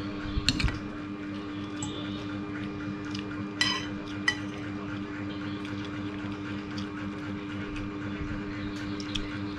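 Eating sounds: a metal spoon and fork clinking and scraping against a plate of rice, with a few sharp clinks (one ringing briefly near the middle), and chewing, over a steady background hum.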